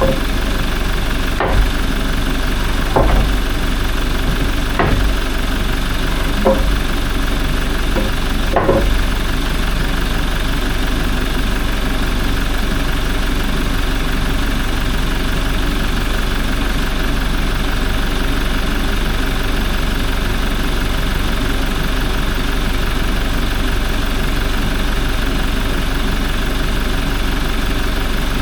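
Toyota 1GD-FTV 2.8-litre four-cylinder turbodiesel idling steadily, with about five sharp knocks spaced over the first nine seconds.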